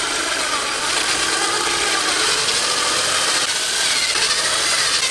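Power drill running steadily, its bit grinding and cutting into the brittle plastic of a fuel pump housing to widen the fuel pressure regulator's cavity.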